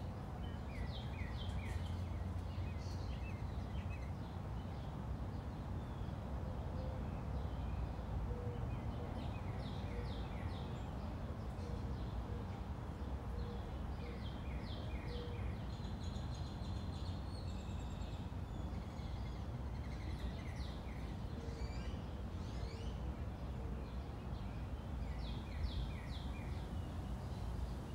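Birds chirping in short, repeated runs of quick high notes over a steady low outdoor rumble.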